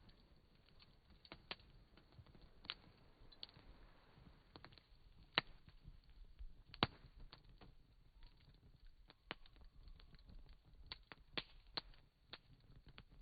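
Wood campfire crackling, with sharp irregular pops over a faint low background.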